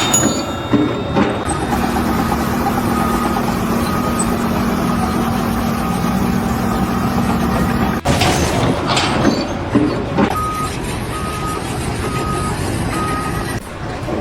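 A heavy vehicle's engine running with a reversing alarm beeping. After a sudden cut, four evenly spaced backup beeps sound.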